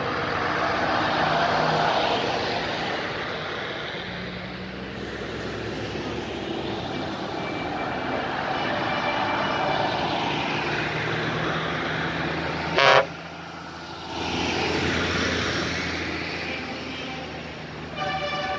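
Heavy trucks in a convoy driving past one after another, engine and tyre noise swelling and fading as each goes by. About thirteen seconds in, one truck gives a short, loud horn blast.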